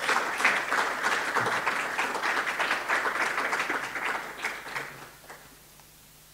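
A small audience applauding, the clapping dying away about five seconds in.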